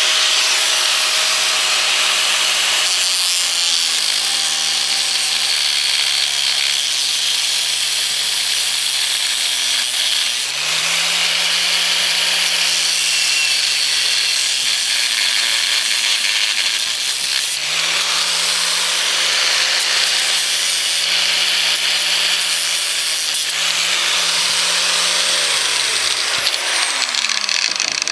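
Angle grinder cutting through a steel chain, with a steady high grinding hiss. The motor's pitch sags several times as the wheel bites and climbs again as the load eases, and it winds down near the end.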